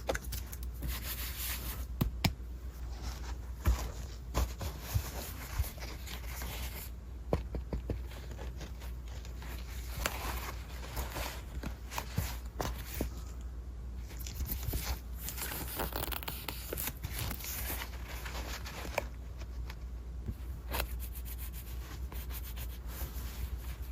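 Hands handling and opening gift packaging: rubbing, tearing and rustling, with many scattered taps and clicks.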